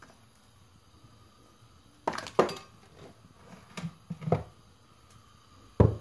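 Stainless steel pots clanking and scraping against each other and the shelf as one pot is lifted down: a cluster of knocks about two seconds in, a few more around the middle, and the loudest clank near the end.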